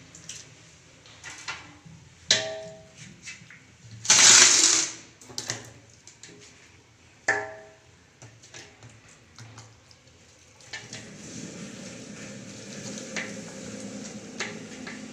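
Raw mutton pieces being handled and pressed into a metal cooking pot. There are scattered soft clicks and knocks, and two sharper knocks, about two and seven seconds in, that set the metal pot ringing. A short loud burst of noise comes about four seconds in, and a steady low hum-like noise sets in near eleven seconds.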